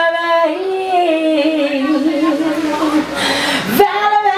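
A woman singing a cappella, with no instruments: she holds one long wordless note that sinks slowly in pitch, takes a quick breath a little after three seconds in, then starts a new, higher held note near the end.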